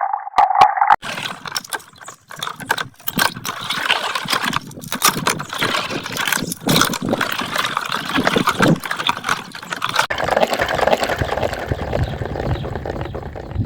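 Water splashing and dribbling with irregular clicks and knocks, as of plastic rings moving in water. A narrow-toned sound cuts off about a second in, and a lower rumble joins in near the end.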